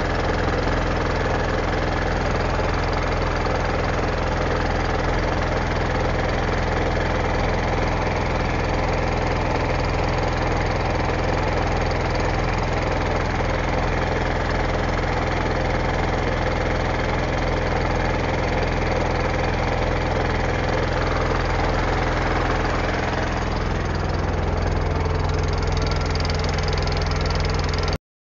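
A small wooden boat's engine running steadily under way, with water noise, its note shifting a little about 23 seconds in.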